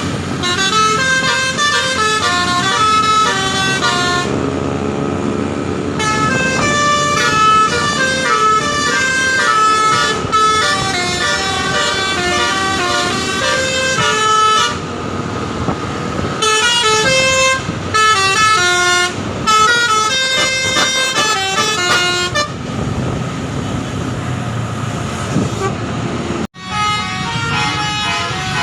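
Bus's 'telolet basuri' multi-tone musical horn playing a tune of quick stepped notes. The tune comes in several phrases, and between them an engine rumble is heard. The sound drops out sharply for a moment near the end.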